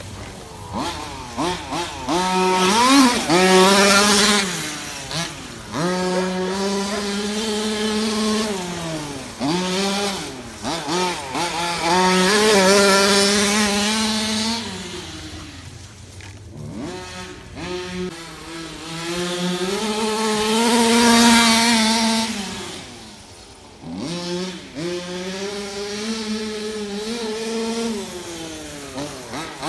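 Two-stroke 30.5cc OBR modified gas engine of a Losi 5ive-T 1/5-scale RC truck, its pitch rising and falling again and again as the throttle is worked. It eases off sharply a few times, most deeply about halfway through and again a few seconds before the end, then climbs back up.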